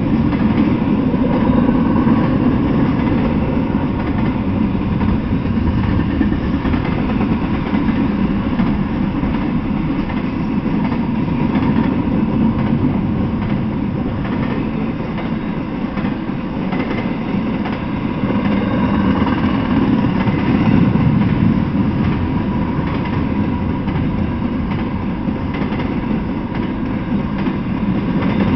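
Freight train passing: a steady, loud rumble of the wheels of double-stack intermodal container cars and then open freight cars rolling on the rails, swelling and easing slightly as the cars go by.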